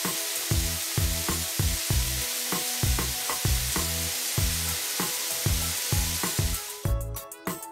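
Cartoon water-spray sound effect: a steady hiss of hose nozzles spraying water, over background music with a steady beat. The hiss stops near the end, leaving the music.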